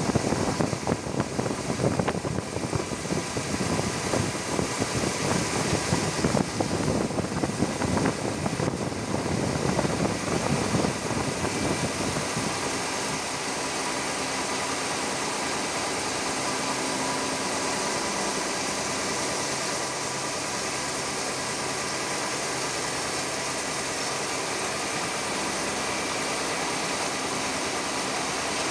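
CNC milling machine with a FANUC control running at low speed, its end mill cutting a 7-series aluminium part under flood coolant spray. The cutting noise is rough and uneven at first, then about twelve seconds in it settles into a steadier, even sound.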